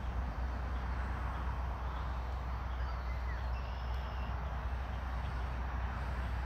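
Steady outdoor background noise: a low rumble with a hiss above it, and a few faint high chirps a couple of seconds in.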